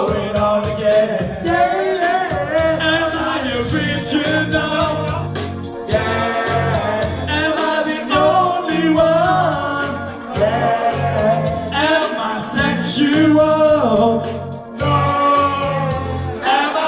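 Upbeat pop backing track with a steady bass beat, and a group of men singing along over it.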